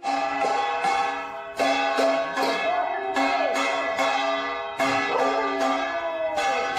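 Temple bell rung repeatedly, about two strokes a second, each stroke's ringing running into the next.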